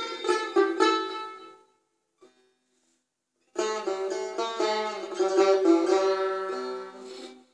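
Persian tar plucked with a plectrum, playing a phrase in Bayat-e Tork. The first notes ring out and die away about a second and a half in. After about two seconds of silence a quicker run of notes starts and fades near the end.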